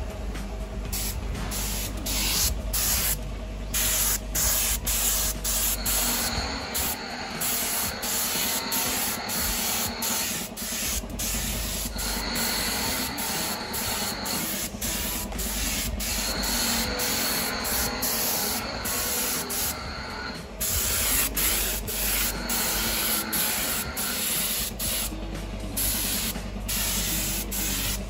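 Paint spray gun hissing as paint is sprayed on, the hiss cutting out briefly again and again as the trigger is let go, over a low steady hum.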